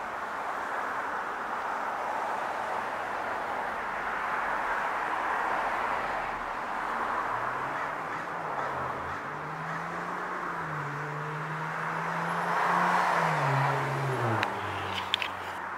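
Steady background traffic noise that swells and fades, with a vehicle's engine hum coming in about halfway through and dropping in pitch near the end. A few sharp clicks follow just before the end.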